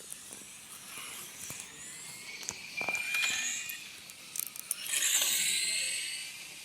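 Remote-control racing buggies speeding past on the dirt track, their motors giving a high-pitched whine with a hiss of tyres. They pass twice, at about three seconds and, louder and rising, about five seconds in.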